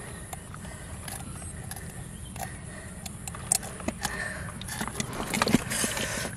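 Hands handling a large, slimy catfish in a plastic tub while working a fishhook out of its mouth: scattered small clicks and wet slaps over a steady low rumble, getting busier about halfway through.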